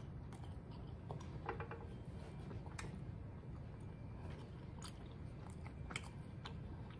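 A person chewing a mouthful of Chinese takeout food, faint, with a few small sharp clicks scattered through it.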